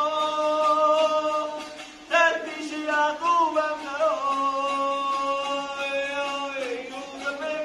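A man singing a Persian Sufi song in long held notes, two drawn-out phrases with a short break about two seconds in and a bend in pitch in the second, over a plucked tanbur.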